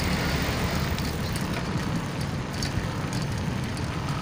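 Steady rushing noise of wind on the microphone and road noise from riding a bicycle along a paved street, with a few faint clicks.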